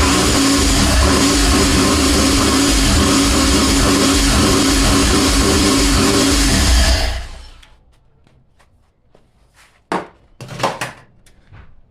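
Supercharged Pontiac Fiero engine running loudly and steadily through a newly fitted Flowmaster exhaust, then shut off about seven seconds in and dying away. A few short knocks follow near the end.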